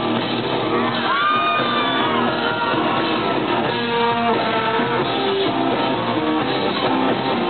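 Live rock band playing, guitar-driven, with a sliding high note about a second in.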